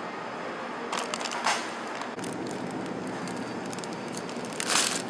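Plastic produce packaging crinkling as it is handled: short rustles about a second in and again near the end, over steady background noise.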